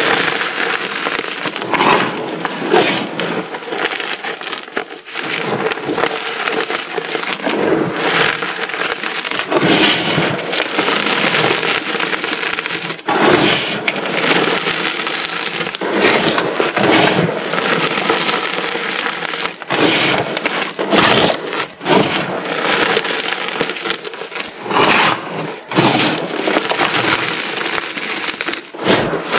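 A mass of small moulded pieces of reformed, dyed gym chalk being crushed together: dense, continuous crunching and crumbling.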